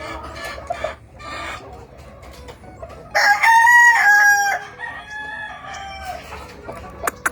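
Gamefowl rooster crowing once, loudly, about three seconds in, the crow lasting about a second and a half. Other chickens cluck and call before and after it.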